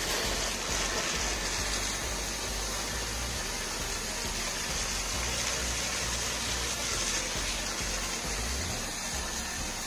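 Foam wash spray jetting onto a motorcycle: a steady hissing gush, with a low rumble underneath. The hiss eases a little about seven seconds in.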